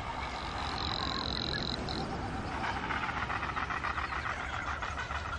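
Frigatebirds calling in a nesting colony: displaying males give a fast, even rattling warble, which becomes strong about halfway through, with a thin high whistle briefly about a second in.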